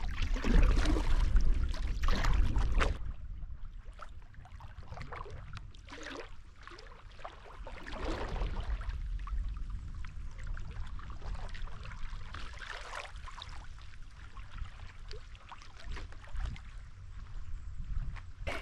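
Paddle strokes in lake water: several separate swishes and splashes a second or more apart, with trickling water in between. Wind rumbles on the microphone for the first three seconds.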